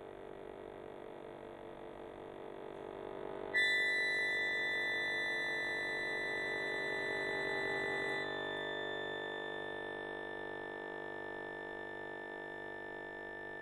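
Two accordions holding long, dense chords. About three and a half seconds in, a loud high chord enters sharply over the lower notes and cuts off around eight seconds in, leaving a lower chord that slowly fades.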